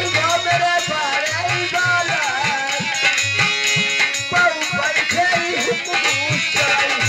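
Live Indian folk music: a hand drum plays a steady beat with pitch-bending bass strokes under a wavering melody line, with held chord tones for a moment in the middle.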